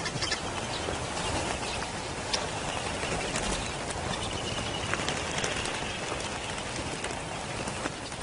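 A large flock of birds wheeling over a waterhole: a steady rush of many fluttering wings with scattered short ticks and chirps.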